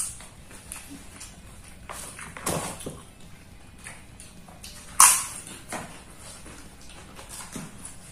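Close-up eating sounds: two people chewing and crunching food eaten by hand and with a spoon, with paper plate liners rustling. The loudest is one sharp crackle about five seconds in.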